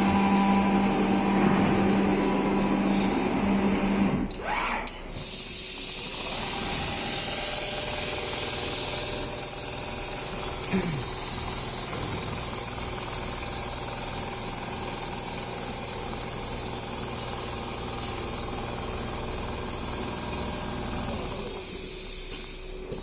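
Automatic large-panel sewing machine running. A steady motor hum fills the first four seconds. After a short dip it gives way to a steady hiss over a low hum, which dies away near the end.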